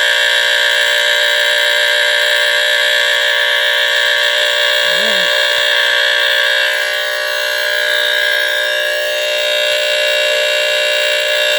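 Vintage 1970s smoke alarm with a squealer-type horn sounding continuously: a loud, steady, harsh squeal of many tones at once, which wavers slightly in the second half.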